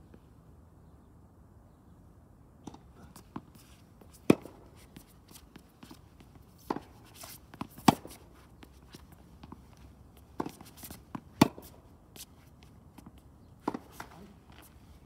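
Tennis ball in a rally: sharp pops of racket strikes and ball bounces a second or two apart, some coming in quick pairs of bounce then hit.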